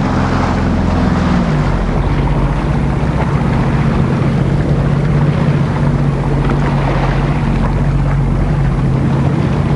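Jet ski engine running; its pitch drops about a second in as it eases off, then holds steady, with rushing water and wind noise underneath.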